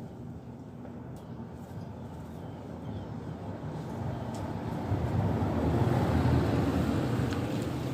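A passing vehicle, its rumbling noise swelling to a peak about six seconds in and then fading away.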